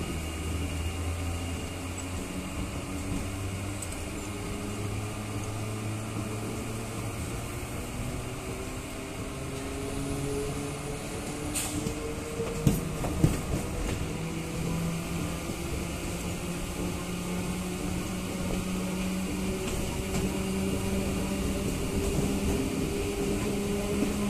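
Suburban electric local (EMU) train heard from on board as it pulls away from the station, its traction motors humming steadily and slowly rising in pitch as it gathers speed. Two sharp knocks come about halfway through.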